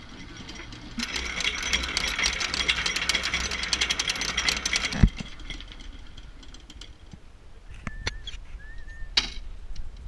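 Rapid ratcheting clicks from a sailboat's mast winch and halyard as the line is hauled in, for about four seconds, ending in a thump. Then a few lighter knocks and a brief squeak.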